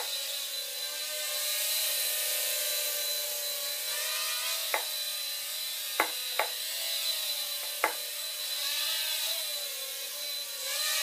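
Blade Nano QX micro quadcopter's small brushed motors and propellers buzzing steadily as it hovers, the pitch wavering up and down with throttle changes near the end. Four short sharp taps come around the middle.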